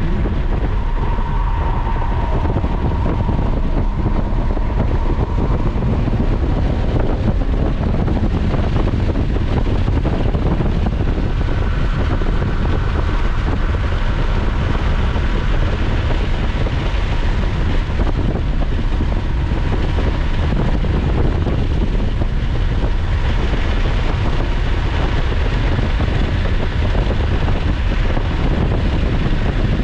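A Lotus Evora at track speed, heard from inside the cabin: steady engine, tyre and wind noise with a heavy low rumble, as the car goes from about 65 to over 100 mph.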